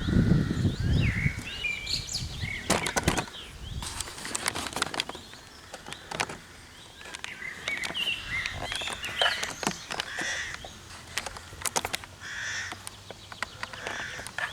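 Birds chirping and calling on and off, among scattered sharp clicks and rustling, with a low rumble in the first second.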